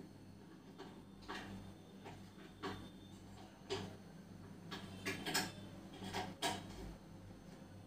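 A series of light, irregular clicks and taps as crisp, sugar-syrup-dipped fried bread toasts are handled and set down on a steel plate, over a faint steady hum.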